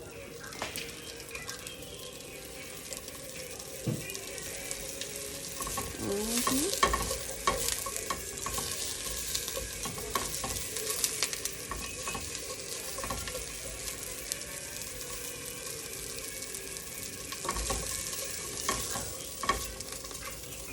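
Diced salchichón (hard Spanish sausage) sizzling and crackling in a hot pot as it renders its fat, with a utensil scraping and stirring it against the pot now and then.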